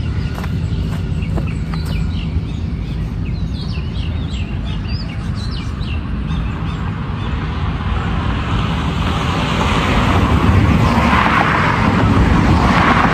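Small birds chirping over a steady low rumble of road traffic; from about eight seconds in, a passing vehicle's engine noise grows louder.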